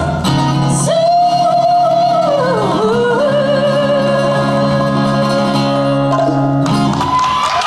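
A woman sings live into a microphone, holding one long note with vibrato over acoustic guitar. The music stops near the end and applause starts.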